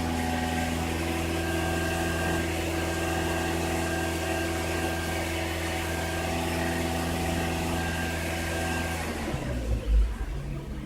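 Toyota Corolla's four-cylinder engine idling steadily while warming up. About nine seconds in, the idle sound breaks off and a loud low thump follows.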